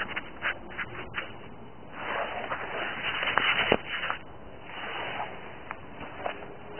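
Handling noise on the camera's microphone: rubbing and scraping with a few sharp clicks in the first second or so, then a longer rustle about two to four seconds in and a softer one about five seconds in.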